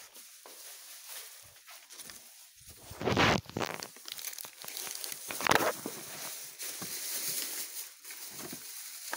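Paper grocery bags and plastic bags rustling and crinkling as they are handled, with two louder crinkling bursts, about three seconds in and again about five seconds in.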